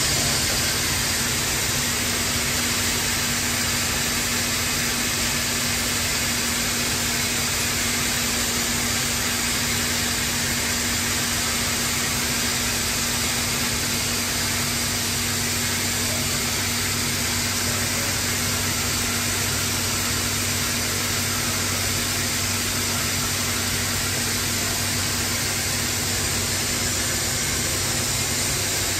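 Anderson Stratos Pro CNC router machinery running steadily: a loud, even rushing hiss with a steady hum underneath, and a lower hum growing stronger about halfway through.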